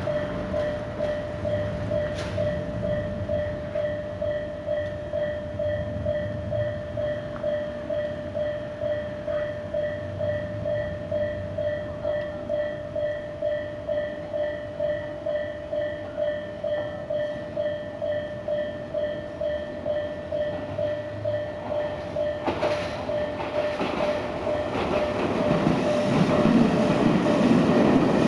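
Japanese level-crossing warning bell, the Tobu Isesaki-type electronic tone, ringing in a steady repeated ding-ding. About 24 seconds in, a Tobu Kameido Line train draws near, and its wheel and rail noise builds to the loudest sound at the end as it passes over the crossing.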